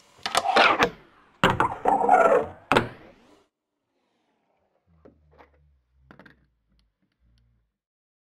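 Fingerboard rolling on a wooden ramp and table, with sharp clacks of the board striking the wood. It comes as two short rolling runs in the first three seconds, followed by a couple of faint small knocks.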